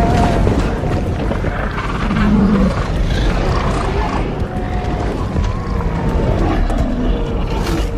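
Film sound effect of a dinosaur herd on the move: a steady, dense low rumble of many heavy footfalls under overlapping drawn-out animal calls, some held and some gliding in pitch.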